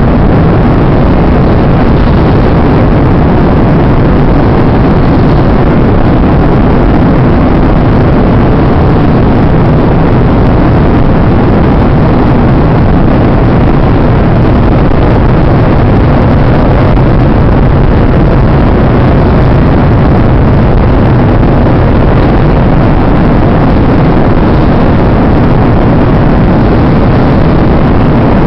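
Steady aircraft cabin noise: the constant drone of the engines and airflow, loud and unchanging throughout.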